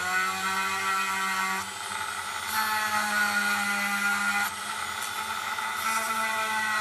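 Dremel-type rotary tool running steadily, spinning an olive-pit bead on a needle mandrel against 2000-grit sandpaper. Its motor whine shifts pitch slightly a few times.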